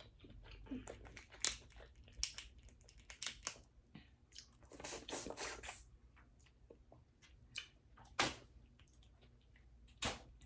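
Close-miked eating of a seafood boil: crawfish and mussel shells cracking and tearing apart, with wet chewing in between. The sounds come as irregular sharp cracks and clicks, the loudest about eight seconds in.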